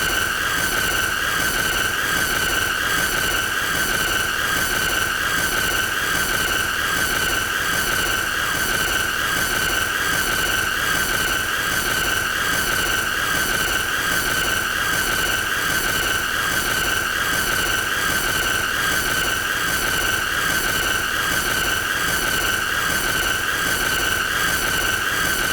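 A steady, shrill, high-pitched whine that wavers slightly in pitch and never lets up, over a constant hiss.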